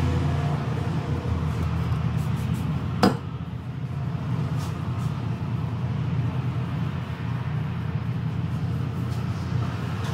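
Electric hair clipper buzzing steadily against the scalp, with one sharp click about three seconds in.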